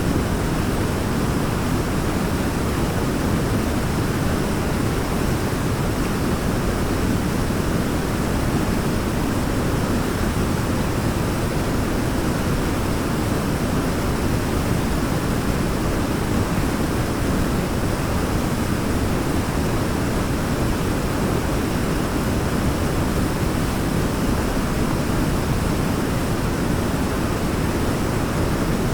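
Waterfall, water falling and rushing in a steady, unbroken roar.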